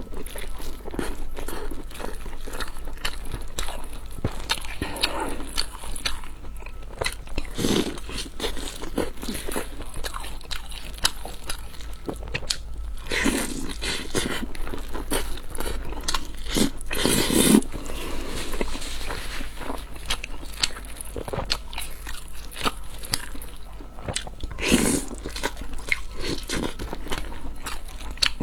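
Close-miked eating: steady chewing and wet mouth clicks, with a few louder crunching bites.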